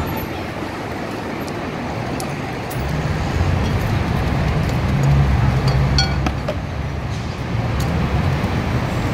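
Steady road traffic noise, a low rumble of passing vehicles that swells about halfway through, with a few light clicks on top.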